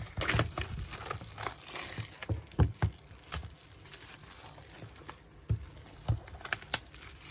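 Cardboard and plastic packaging being handled and worked out of a tight box: irregular knocks and taps with scraping and rustling between them.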